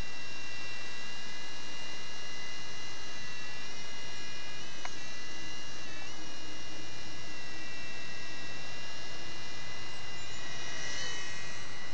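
Topp Toys Gyro 1215 toy coaxial RC helicopter's small electric rotor motors running with a steady high whine, dipping briefly in pitch about five and six seconds in and wavering near the end.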